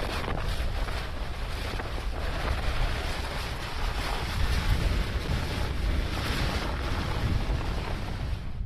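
Steady rushing, wind-like noise over a heavy low rumble, from a layered sound-effect track. It cuts off abruptly near the end.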